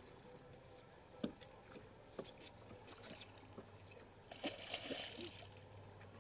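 Water slapping and sloshing against a boat hull, with a few light knocks and a short burst of splashing about four and a half seconds in, over a faint low hum.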